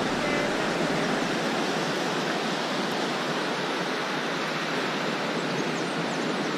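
Surf washing ashore in a steady, even rush.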